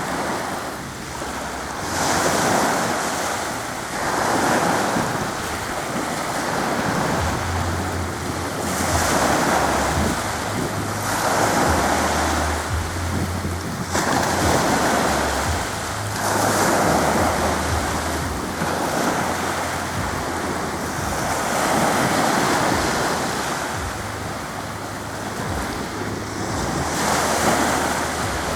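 Sea waves washing onto the shore in repeated surges every few seconds, with wind buffeting the microphone.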